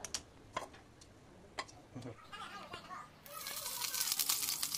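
A few light clicks, then from about three seconds in a loud steady sizzle as cooking oil is poured into a hot pot on a gas burner.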